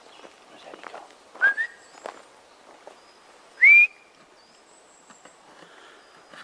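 A person whistling twice, two short rising whistles about two seconds apart, the second louder and higher: a whistle to call a dog.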